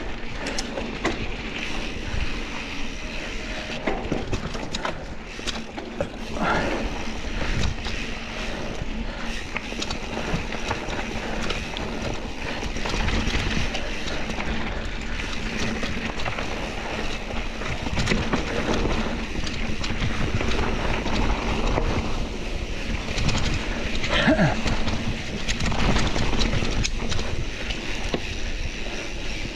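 Mountain bike rolling downhill on a dirt trail: tyres over dirt, roots and rocks, with the bike rattling and knocking over the bumps, under steady wind rush on the microphone.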